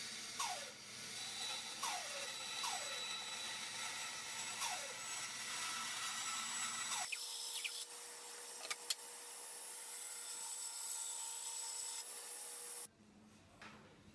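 Benchtop band saw cutting a thin wooden crate board: a steady sawing hiss with a few short falling squeaks in the first half. The sound changes about halfway and cuts off abruptly about a second before the end.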